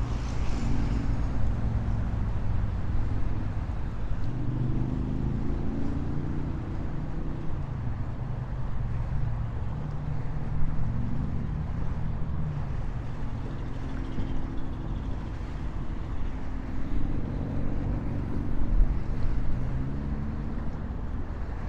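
Road traffic passing steadily, engine tones rising and falling as vehicles go by, over a low rumble of wind on the microphone.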